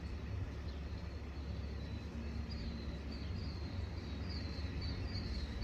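Killdeer calling in flight: a run of short, high, slightly falling notes about two a second, louder from about halfway through, over steady wind rumble on the microphone.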